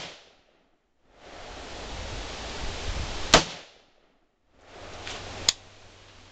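Two single shots from a Bushmaster AR-15 rifle in .223, about two seconds apart: one about three seconds in and one near the end.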